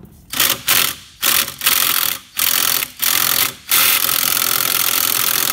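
Cordless impact driver hammering on a tight lawn mower blade bolt in several short bursts, then one long continuous run. The gun is struggling: the bolt is not coming undone.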